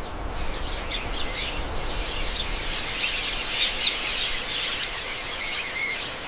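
Many birds chirping, a dense run of short, quick calls, over a steady background hiss and low rumble.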